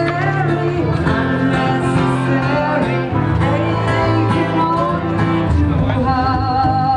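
Live band music from a stage: a singer over guitar accompaniment with sustained low bass notes.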